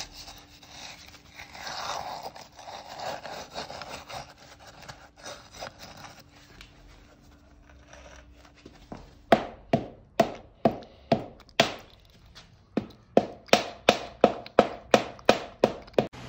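Wet concrete being stirred and packed inside a square steel tube, a gritty scraping and rubbing. Then, about halfway through, the steel tube is knocked about twenty times in a steady series, two to three sharp knocks a second, settling the concrete and bringing trapped air bubbles to the surface.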